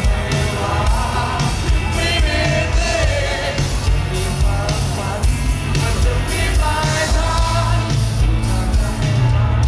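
Live rock band playing loudly: a male vocalist singing over electric guitar, bass and drums.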